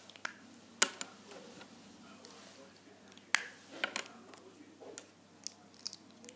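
Scattered sharp plastic clicks and taps as centre caps are pressed onto the screws of a Rubik's cube core, the loudest about a second in and about three seconds in.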